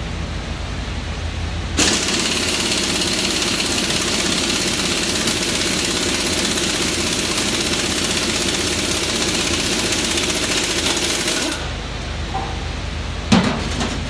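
Impact wrench hammering on the crankshaft pulley bolt of a stripped 5.7-litre V8 block. The rapid rattle starts about two seconds in, runs for about ten seconds and stops suddenly, and a sharp knock follows near the end.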